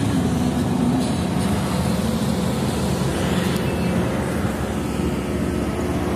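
SANY SY215C hydraulic excavator's diesel engine running steadily, heard close up at the open cab.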